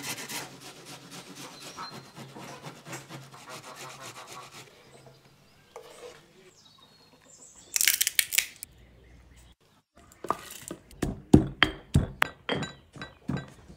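An onion being grated on a metal box grater in quick, even rasping strokes, then a spoon scraping grated onion and pomegranate paste off a wooden board with a brief loud scrape. Toward the end, walnuts are pounded in a stone mortar with a pestle: a quick run of sharp knocks, the loudest sounds.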